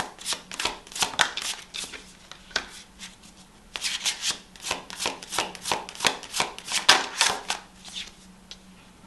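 A deck of tarot cards being shuffled by hand: quick, crisp card sounds in two spells, with a short pause about three seconds in, tapering off near the end.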